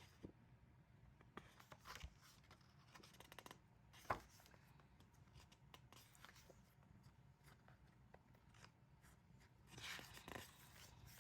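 Faint handling of a photo book: soft paper rustles and small ticks as its glossy pages are turned, with one sharper tick about four seconds in and a short rustle near the end.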